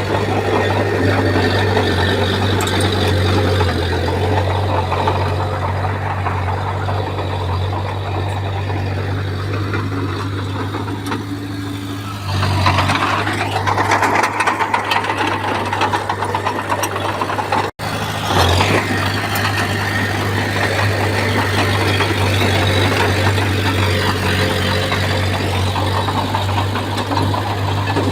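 Bulldozer's diesel engine running steadily under load, with a strong low hum. It grows louder and harsher about twelve seconds in, then cuts out for an instant a few seconds later before carrying on.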